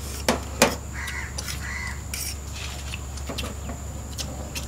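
Two sharp clicks of cutlery against plates in the first second, then a bird calling twice with short calls, over a steady low hum.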